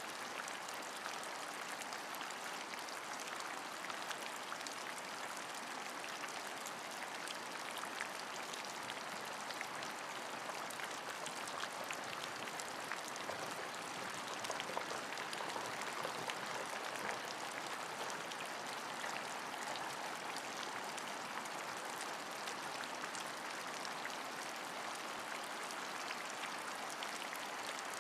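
Steady rainfall, an even hiss with many small drop ticks scattered through it.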